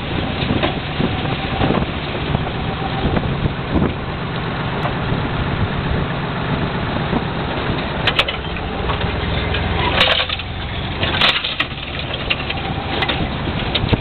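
Cable dragline excavator's engine running steadily under load while the machine swings and casts its bucket, with a mechanical rattle and several sharp clanks from the gear, the loudest about ten and eleven seconds in.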